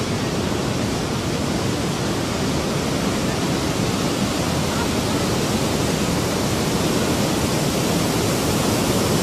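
Tsunami surf breaking and surging over the beach: a steady rushing noise.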